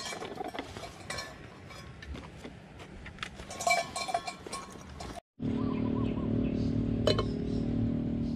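Camping gear rustling and clinking as it is unpacked from bicycle bags. After a sudden break about five seconds in, a steady low hum takes over, with a few short warbling notes.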